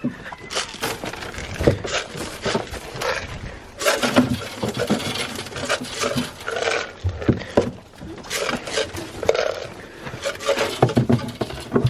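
Goats jostling close by: irregular scuffling, knocking and scraping, with a few light clinks.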